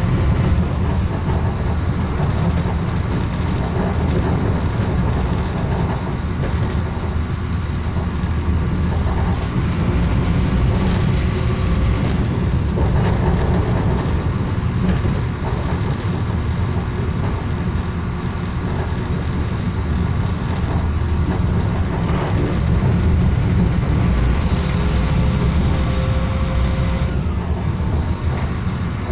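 Passenger train running at speed, heard from inside the carriage: a steady low rumble.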